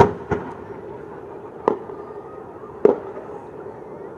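Aerial fireworks display: shells going off as sharp bangs, two in quick succession at the start, then single bangs about a second apart, and another at the very end.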